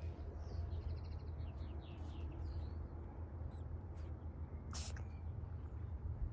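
Birds chirping over a low steady rumble, with one short, sharp sneeze from a cat about three-quarters of the way in.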